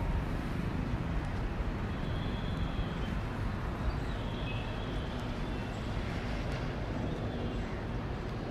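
Steady wash of distant city traffic noise heard from a rooftop, with faint high tones drifting in between about two and four and a half seconds in. A short knock right at the start.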